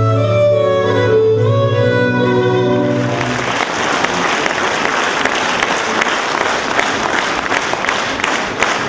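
Music ends on held notes about three seconds in. Audience applause follows for the rest, a dense run of sharp claps.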